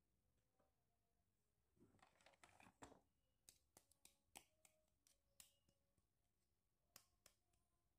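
Faint handling of small plastic toys: a soft rustle about two seconds in, then a string of light plastic clicks and taps as a toy hair curler is lifted from the box and turned in the hands.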